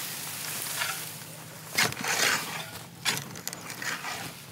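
Dry straw crackling and crunching as a pitchfork is driven into a straw-covered compost heap and levers up the dark compost beneath, in several strokes, the loudest about two seconds in.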